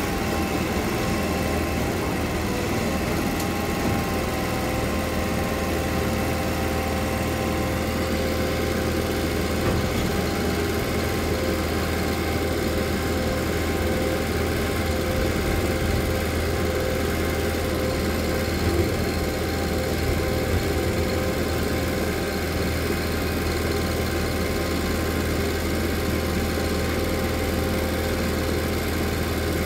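Bucket truck engine idling steadily while the Altec aerial boom is worked, with a steady whine over the engine hum from the hydraulics driving the boom.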